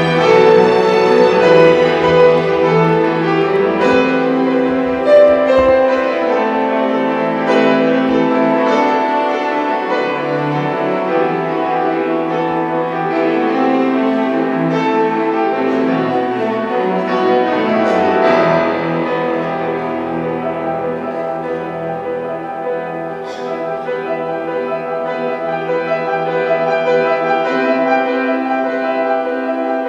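Classical music: piano playing with a string orchestra, the strings holding long chords under the piano.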